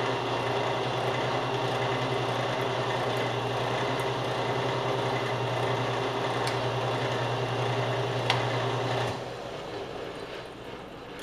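Metal lathe running steadily with a low hum while turning a stainless steel pin. A click comes a little after eight seconds, and the running sound then drops away sharply to a fainter, fading hum as the lathe is stopped.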